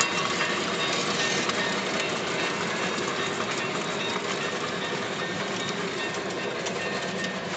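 Lionel American Flyer Challenger model steam locomotive and its train cars running steadily on the layout's track, a continuous rolling and running noise with light clicks from the wheels.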